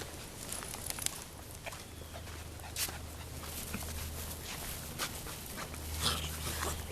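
Labrador and Labradoodle puppies being walked on leads, with scattered short clicks and scuffs as they move.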